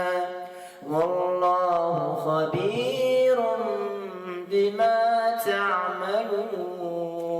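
A man's voice reciting the Quran in melodic tajweed style, drawing out long, ornamented held notes. Breaks for breath about half a second in and again at about four and a half seconds.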